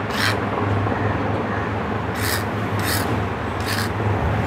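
Flat hand file rasping across the steel needle plate of a sewing machine in four short strokes, one near the start and three about two-thirds of a second apart later on, filing off a raised burr. A steady low hum runs underneath.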